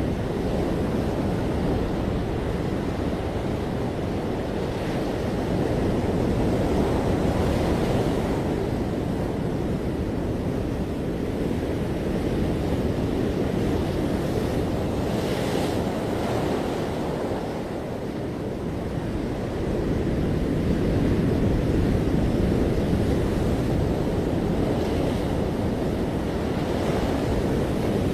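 Ocean surf breaking on a beach: a continuous rushing wash that swells and eases over several seconds, with a brief hiss of foam around the middle, and some wind buffeting the microphone.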